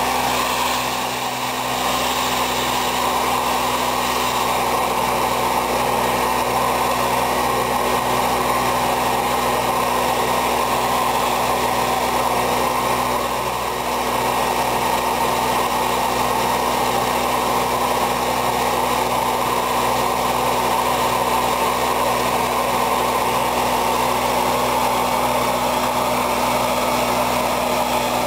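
Madpatcher jet-injection pothole-patching machine running with a steady mechanical hum, while stone chippings coated in bitumen emulsion are blown in a continuous rushing stream from its hand-held hose nozzle into a pothole. The level dips briefly about a second in and again about halfway through.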